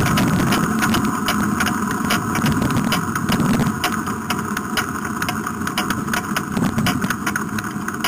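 Front-engine dragster's V8 running at low speed through open zoomie headers, with a lumpy, uneven beat and irregular crackling. It eases slightly quieter toward the end.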